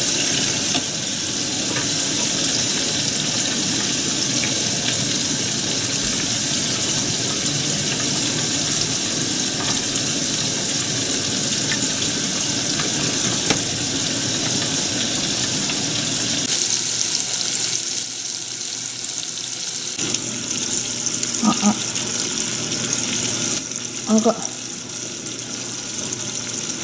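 Chicken karaage deep-frying in a pot of oil: a steady sizzle. Two short sounds stand out near the end.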